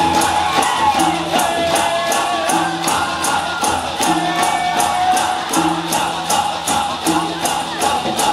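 Dikir barat music: a singer's voice carries a wavering melody over percussion keeping a fast, even beat of about three strikes a second. A low tone sounds in regular pulses about every second and a half.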